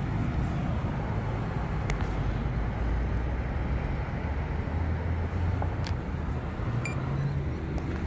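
Road traffic passing at an intersection: a steady wash of car engines and tyre noise, with engine hum rising and fading as vehicles go by, and a couple of light clicks.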